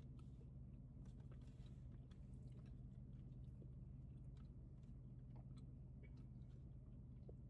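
Faint chewing of a bite of cabra (goat's milk) cheese, with soft, scattered mouth clicks, over a steady low hum.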